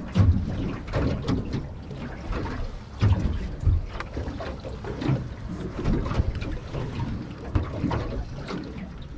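Wind buffeting the microphone over water slapping against the hull of a small boat. It comes in uneven gusts, with heavier low thumps about a third of a second in and again around three seconds in.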